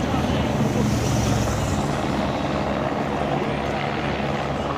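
Helicopter engine and rotor giving a steady low drone with a fast even beat.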